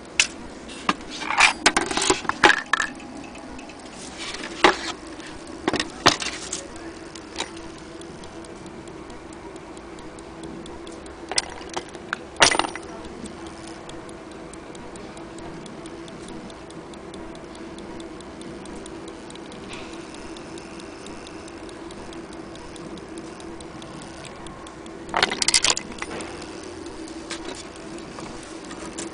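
Elliott mantle clock movement ticking steadily, with a few short clusters of louder sharp clicks and knocks.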